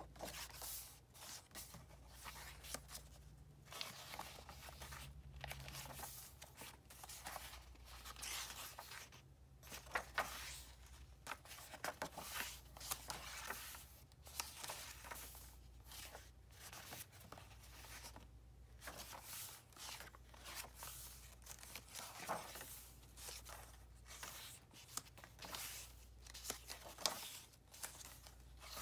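Faint paper swishes and crackles as the stained vintage-paper pages of a handmade junk journal are turned by hand, one after another, with a few sharper flicks.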